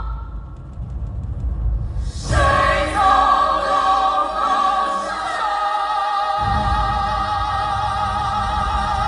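Live musical-theatre singing with band accompaniment. About two seconds in, a long note is held with slight vibrato, and the low accompaniment drops out briefly and comes back.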